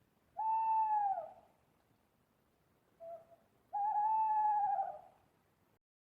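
Owl hooting: one hoot of about a second that drops in pitch at its end, a short lower note about three seconds in, then a longer, slightly wavering hoot.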